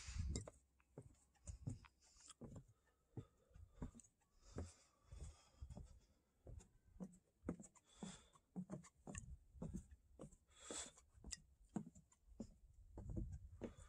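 Faint footsteps of a person walking on a trail, about two to three steps a second, with a few brief rustles.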